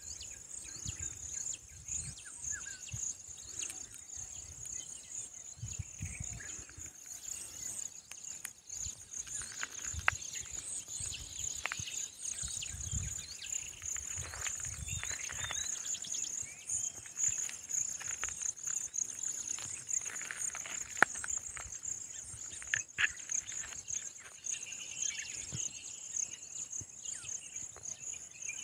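Steady, high-pitched insect drone of crickets or cicadas, with scattered short bird chirps and occasional low rumbles.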